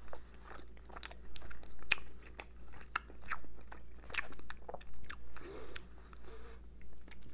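Close-up chewing of a mouthful of breaded lemon chicken: irregular crisp crunches and wet mouth clicks as it is bitten and chewed.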